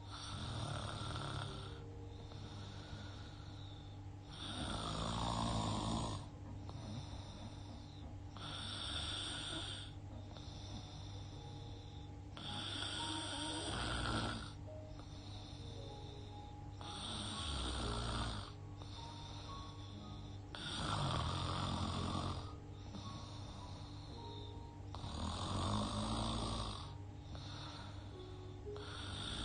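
A woman snoring in her sleep, breathing through her open mouth, with a snore about every four seconds.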